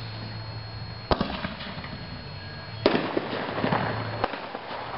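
Double-break artillery firework shell (a 'double bomb'): a sharp bang about a second in, then a louder bang just under two seconds later that trails off over about a second and a half.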